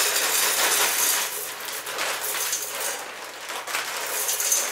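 Dry spiral pasta poured from a plastic bag into a stainless steel pot, a dense rattle of hard pieces hitting the metal and each other. The rattle is thickest for about the first second, then thins to smaller trickles and flurries.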